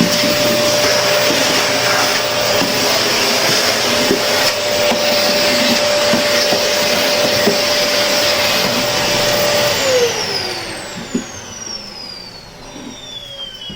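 Household vacuum cleaner running with a steady whine, with a few light knocks. About ten seconds in it is switched off and the motor winds down, its whine falling in pitch as it fades.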